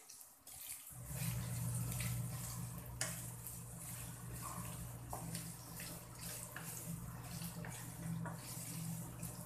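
Ground pork and sliced sausage sizzling in a frying pan as a wooden spatula stirs them, with scattered light knocks of the spatula. A steady low hum runs underneath from about a second in.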